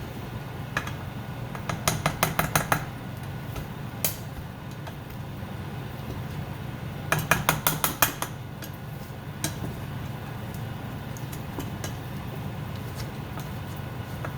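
Mashing boiled, buttered potatoes in a pot: the utensil knocks against the pot in two quick runs of about half a dozen strikes each, with one lone knock between.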